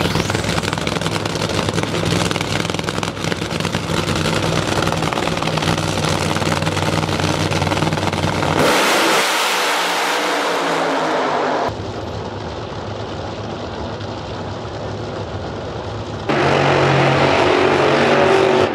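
Drag-racing engines running loud, switching abruptly between different cars three times. One stretch in the middle is a harsh full-throttle blast whose low end falls away.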